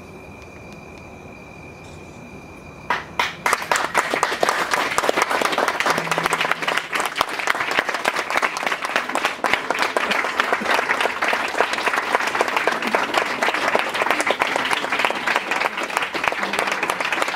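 An audience applauding: many hands clapping break out about three seconds in, after a quiet stretch with only a faint steady high tone, and keep going densely.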